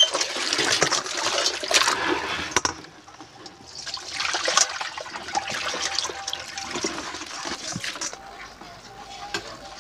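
Water splashing and sloshing in a plastic basin as live crabs are rinsed under running water with a steel colander; about four seconds in, the washing water is poured out of the basin onto a concrete floor. The splashing dies down over the last few seconds.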